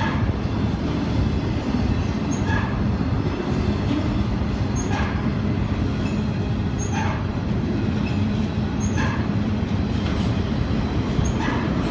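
Steady rolling rumble of a double-stack intermodal train's well cars passing close by, wheels on the rails, with a faint click recurring about every two seconds.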